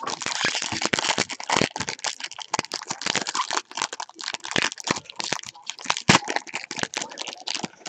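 Foil trading-card pack wrapper crinkling and crackling as hands tear it open and peel it back, a dense run of quick, sharp crackles.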